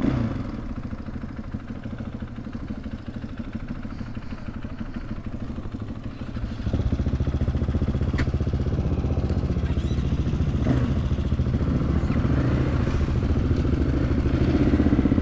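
Husqvarna FE 501's single-cylinder four-stroke engine running, getting louder about seven seconds in and staying up.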